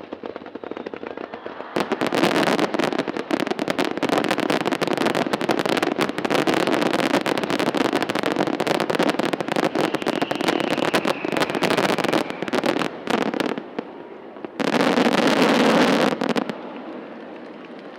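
Fireworks finale: a dense barrage of shell bursts and crackling from about two seconds in. After a short lull comes one last loud volley, which stops suddenly near the end.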